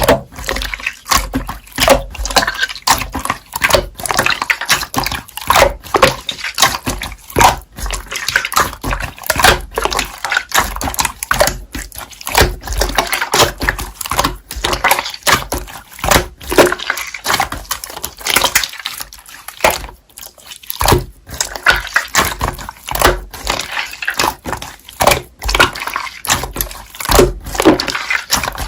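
Slime being squished and pressed by hand, making a continuous irregular run of wet, sticky squelches and sharp clicks.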